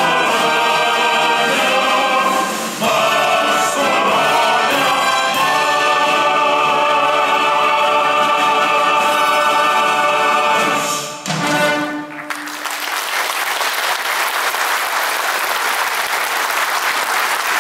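Men's choir singing a march with an orchestra, the music ending about eleven seconds in; then the audience applauds steadily.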